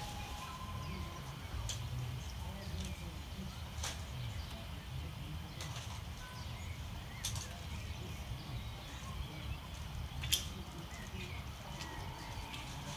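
Outdoor ambience: a steady low rumble with scattered short high chirps and clicks, and a faint steady tone that stops about a second in and comes back near the end.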